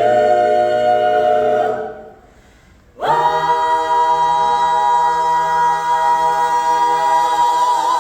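A cappella vocal ensemble of mixed voices singing close harmony. One held chord cuts off about two seconds in, and after a short pause a long sustained chord follows, with vibrato coming into the top voice near the end.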